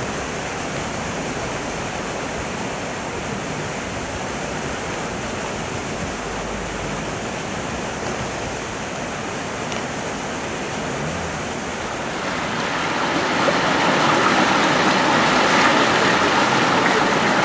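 Floodwater rushing through a narrow stone-walled stream channel, the brook swollen by heavy rain. It gets noticeably louder about three-quarters of the way through; before that there is a softer steady rushing noise.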